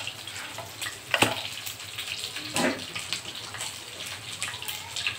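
Naan cooking in a nonstick frying pan, giving a steady hiss. A wooden spatula presses and moves the bread, with a sharp knock about a second in and another near the middle.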